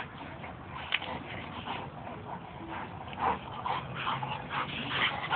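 A black Labrador and a Maremma-Abruzzese sheepdog play-wrestling: a run of short, irregular dog vocal sounds and scuffling, with a sharp click about a second in.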